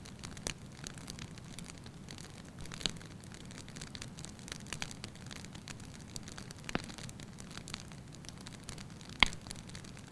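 Wood fire burning in a fireplace, crackling steadily over a low rumble, with frequent small pops and a sharp loud pop about nine seconds in.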